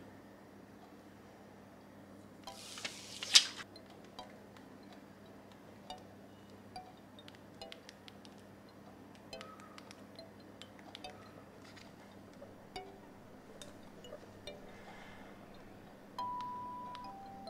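Brief loud scrape of hands handling a clear plastic phone case, then a scattered series of light clicks as the iPhone's side buttons are pressed through the case. Near the end, a run of bell-like chime notes begins.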